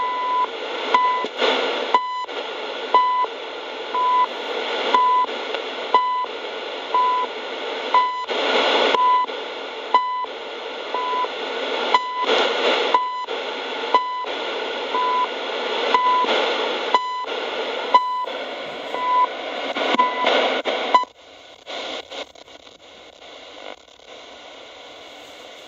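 Shortwave time-signal station heard through a small emergency radio's speaker: a short beep once a second over hiss and surging static. About 21 seconds in the beeps stop and the sound drops to a faint hiss as the radio is tuned off the station.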